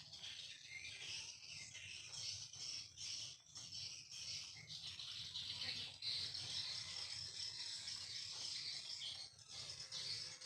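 Swiftlets twittering: a dense, continuous mass of high, buzzy chirps, with a faint low hum underneath.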